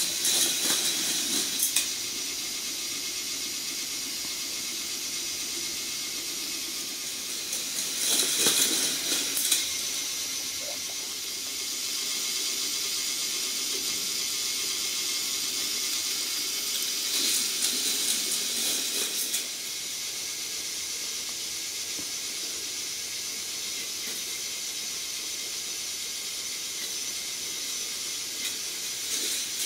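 K'Nex battery motor driving the plastic chain lift of a Speed Demon toy roller coaster: a steady whirring hiss with chain clatter. It swells louder twice, about eight and seventeen seconds in.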